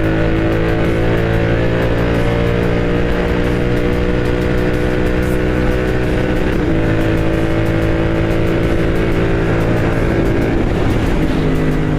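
Royal Enfield Continental GT 650's parallel-twin engine running through an aftermarket Moto Torque exhaust while the bike is ridden. Its note sinks slowly as the revs ease, with a break and reset about halfway through and again near the end.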